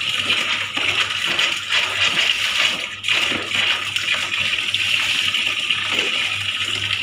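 Water from a wall tap running steadily into a plastic tub, with splashing as clothes are rinsed and water is scooped and poured with a mug.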